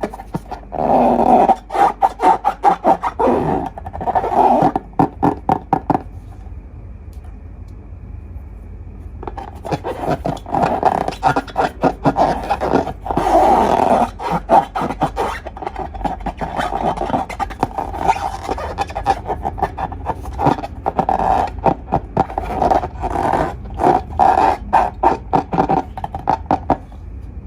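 Slime being squeezed and worked by hand, giving rapid sticky squelching and crackling in bursts, with a quieter pause about six seconds in.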